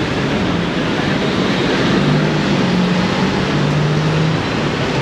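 Busy city street traffic: a dense, steady wash of vehicle engines and road noise. About two seconds in, a low steady engine hum rises above it for a couple of seconds.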